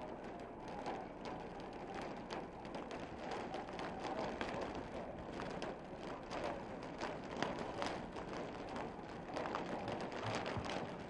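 Outdoor background noise, a steady low rumbling hiss, with many faint clicks and taps scattered throughout.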